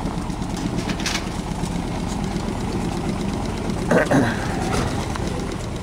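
Inboard diesel engine of a Westerly Centaur sailing yacht idling steadily while the boat is held alongside. A short, louder call-like sound cuts in about four seconds in.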